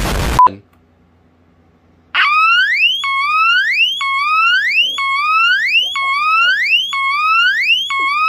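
A burst of explosion noise ends about half a second in. About two seconds in, the electronic horn of a Teledyne WaterPik Sonic Siren D-2 smoke alarm starts up on its test button: a slow, low-pitched whoop, each rising sweep about a second long, repeating evenly.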